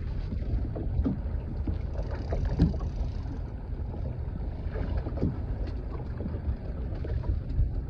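Wind rumbling on the microphone over choppy water slapping the side of a small fishing boat, with a few sharp knocks, the loudest about two and a half seconds in.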